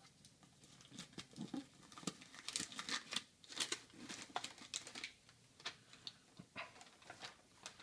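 Packing material and a drink can handled by hand: irregular rustling and crinkling with light clicks as the next can is unwrapped from the box.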